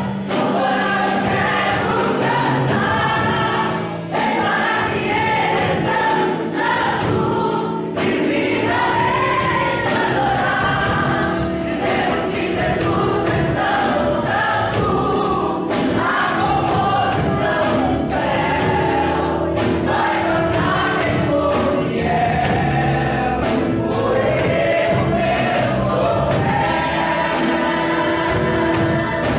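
Several voices sing a gospel worship song together over instrumental accompaniment with a steady beat.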